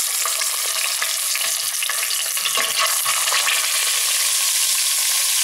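Pieces of raw pork sizzling in hot oil in a stainless steel pot as they go in to sear, with a steady crackling hiss and a few faint knocks as pieces are set down.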